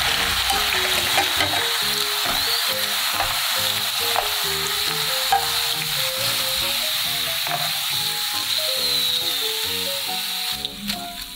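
Potato snacks deep-frying in hot cooking oil: a steady, dense sizzle that thins out about ten seconds in.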